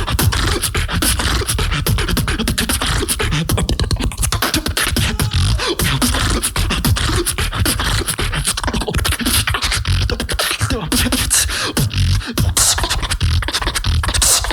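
Competitive solo beatboxing: a fast, dense run of percussive vocal drum sounds over a heavy bass line, unbroken throughout.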